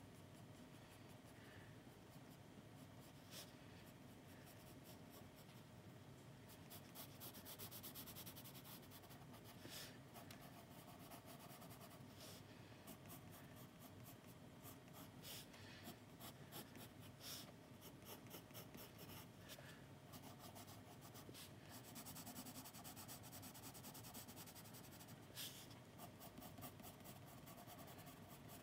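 Graphite pencil scratching on sketchbook paper as a drawing is sketched, faint and in short strokes, with two runs of quick hatching strokes, about a quarter of the way in and again past three-quarters.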